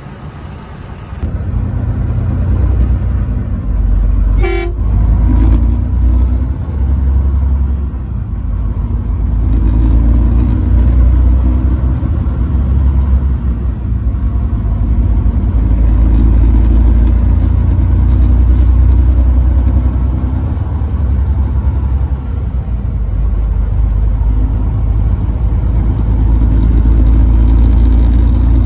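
A truck on the move, its engine and road noise giving a loud, steady low rumble, with one short horn toot about four and a half seconds in.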